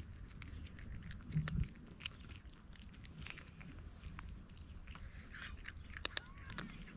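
A cat chewing food, with irregular small crunches and clicks.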